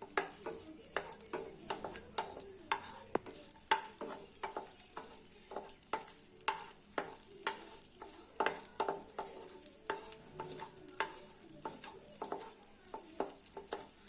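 Coconut pieces frying in hot ghee, a steady sizzle, while a spatula stirs them with frequent clicks and scrapes against the pan.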